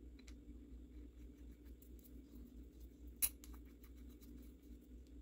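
Small metal parts of a Kubota D722 diesel injection pump clicking and tapping as they are handled, with one sharper click a little over three seconds in, over a faint low steady hum.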